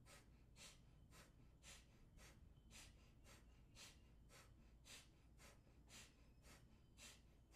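Faint, rapid, forceful exhalations through the nose, about two a second in an even rhythm: alternate-nostril Kapalabhati breathing, with the fingers closing one nostril at a time.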